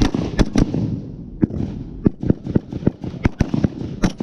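A firefight of rifles shooting blank rounds: over a dozen sharp shots at an irregular pace, some close and loud, others further off.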